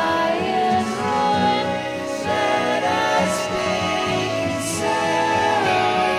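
Music: a song with singing over an instrumental backing.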